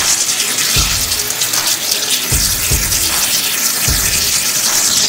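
Waterjet cutting machine cutting a stone slab, its high-pressure jet hissing loudly and steadily and splashing into the water-filled catch tank. Background music with a thumping beat plays beneath it.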